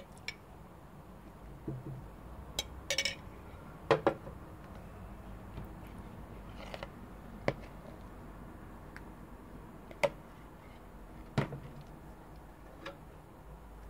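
Metal spoon clinking and scraping against a glass jam jar and a china plate: about ten scattered sharp taps and clicks, the loudest pair about four seconds in.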